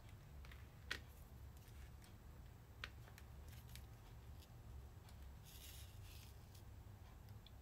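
Faint small clicks and taps of a diamond-painting drill pen picking resin drills out of a plastic tray and pressing them onto the sticky canvas. The clearest clicks come about one and three seconds in, with a brief soft rustle near six seconds, over a low steady hum.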